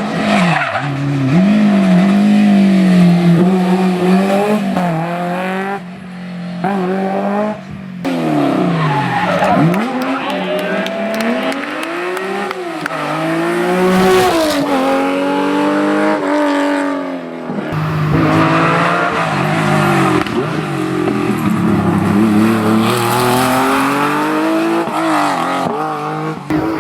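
Historic rally car engines driven hard on a stage, the pitch climbing and falling repeatedly as they rev, shift and back off, with tyre squeal.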